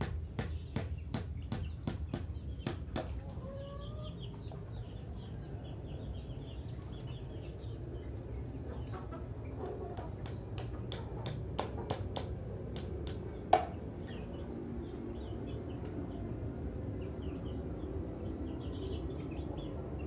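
Chickens clucking and cheeping close by, with a short rising call about three seconds in. A run of quick knocks at about three a second from hand work on a wooden trap frame stops about three seconds in; a few more knocks follow later, the loudest a single sharp knock about two-thirds of the way through.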